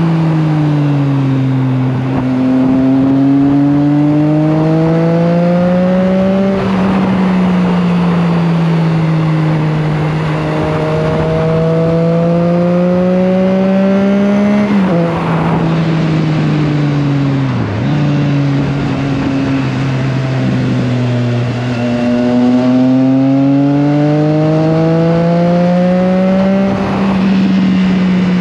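Triumph Trident 660's three-cylinder engine pulling hard, the revs climbing steadily and dropping sharply three times as it shifts up a gear. Wind rushes over the microphone throughout.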